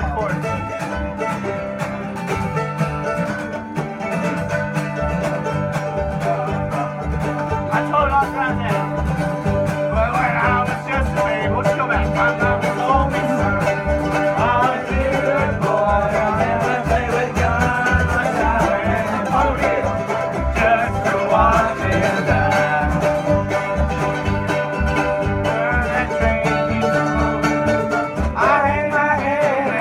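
Acoustic string band playing a bluegrass tune: banjo, mandolin and acoustic guitar picking over a steady upright-bass beat.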